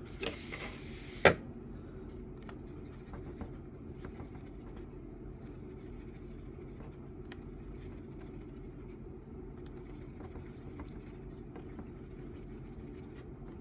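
Light scratching and small ticks of two-part 5-minute epoxy being mixed by hand, with a sharp click about a second in, over a steady low hum.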